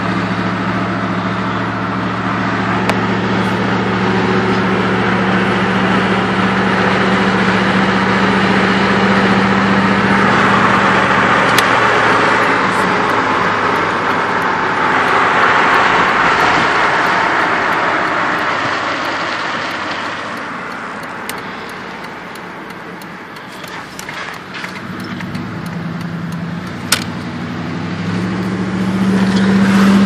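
Vehicle driving, heard from inside the cab: a steady low engine drone with road and wind rush. The rushing swells loudest midway and the engine note fades under it. Near the end the engine note steps back up as the vehicle speeds up again.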